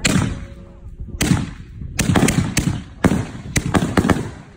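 5-inch canister firework shells going off: about ten sharp bangs with rolling echoes, coming faster in the second half.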